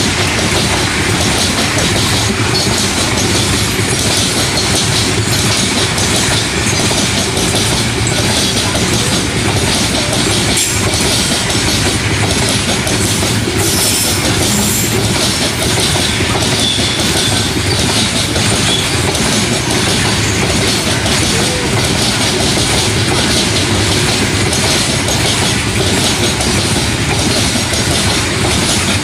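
Loaded coal hopper wagons of a long freight train rolling past, their steel wheels clattering over the rail joints in a steady clickety-clack.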